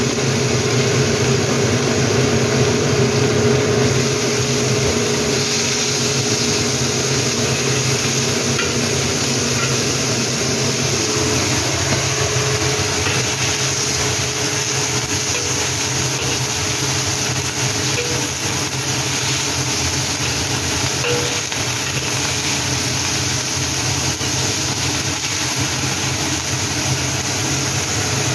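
Shredded chayote stir-frying in a hot wok: steady sizzling, with a spatula stirring and scraping through it, over a steady low hum.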